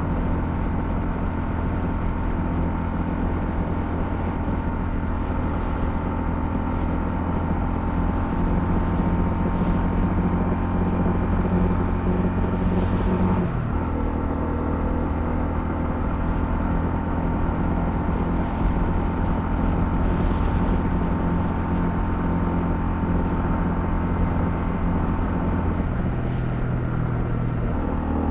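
Honda CL250 motorcycle engine running steadily under way. The engine note changes sharply about halfway through and again near the end.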